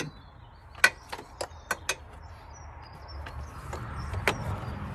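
Hand-fitting of a universal battery clamp and its hooks in a car's engine bay: a string of sharp clicks and knocks, the loudest about a second in. A low handling rumble builds near the end.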